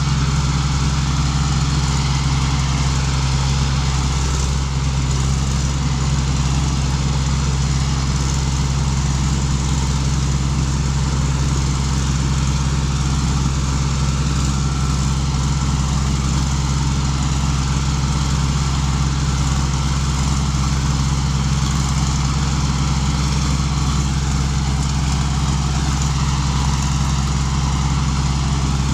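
Kaset Pattana rice combine harvester's engine running steadily, a constant low drone that holds the same speed throughout.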